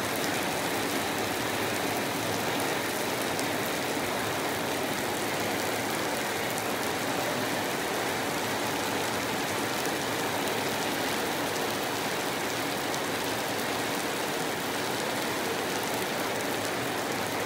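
Steady rain falling on wet concrete paving: an even hiss with scattered sharper taps of single drops.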